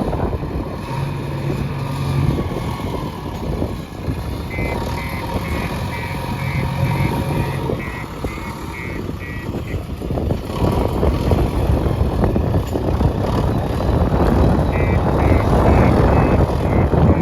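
JCB 3DX backhoe loader's diesel engine running and working, louder in the second half. A reversing alarm beeps about three times a second in two spells, once near the middle and again near the end.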